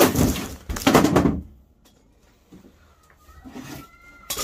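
Startled scuffle with a wooden drawer knocking and clattering: a loud burst of clatter and rustling in the first second and a half, from a man jumping back after a spider frightened him. Then near quiet, with a faint thin high tone and a sharp click near the end.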